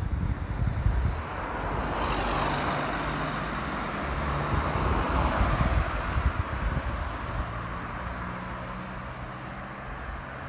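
A motor vehicle passes by on the road: its engine and tyre noise swells over the first couple of seconds and fades away over the rest.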